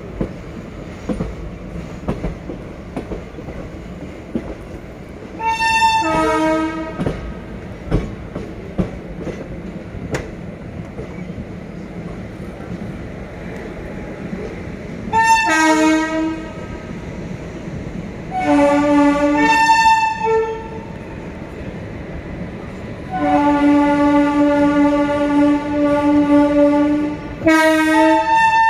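Train horn blowing five times over the steady running rumble and rail clicks of a slow-moving passenger train. The fourth blast is a long one of about four seconds.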